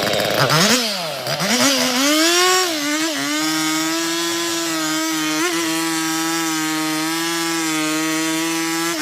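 Chainsaw revving, its pitch rising and falling a couple of times, then running at steady high revs while cutting through logs for firewood, with a brief dip in revs near the end.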